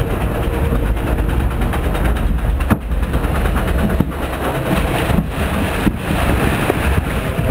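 Log flume boat running along its water trough: rushing, splashing water over a heavy low rumble, with a few sharp knocks.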